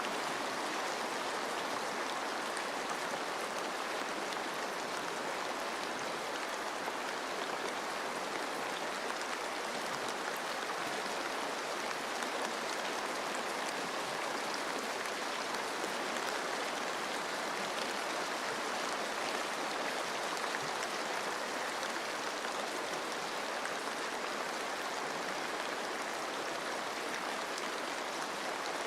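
Steady rain pattering on forest leaves, mixed with a flowing stream: an even, unbroken rushing hiss.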